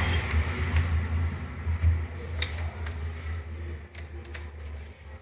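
Light scattered clicks and taps from a laptop being handled, over a low rumble that fades after about three and a half seconds.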